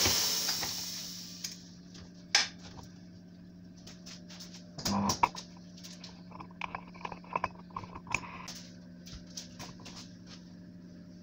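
Tyre and metal bead spreader being handled on a tyre changer. A brief hiss fades out at the start, then come scattered knocks and clicks of metal and rubber, the loudest cluster about five seconds in, all over a steady low hum.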